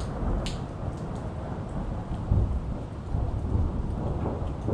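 Rolling thunder rumbling through a steady rain, loudest a little past the middle, with rain falling on a wet concrete driveway and one sharp tick about half a second in.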